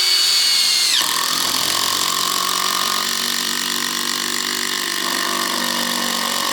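DeWalt DCF787 20-volt cordless impact driver driving a screw into hard ash wood. It starts with a high whine, and about a second in the pitch drops as the screw bites and the driver settles into a steady impacting run.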